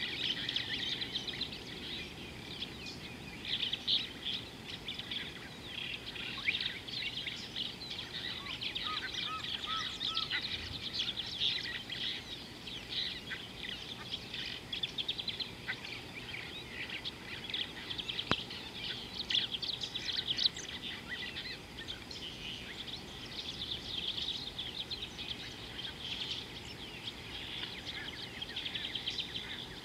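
Wild birds chirping and trilling in a dense, unbroken chorus, with a brief run of about five short, lower whistled notes about nine seconds in.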